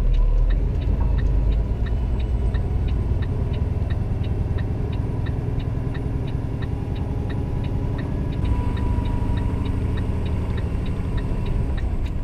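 Turn-signal indicator ticking steadily about three times a second over the drone of a Volvo VNL 780 semi truck's diesel engine, heard inside the cab.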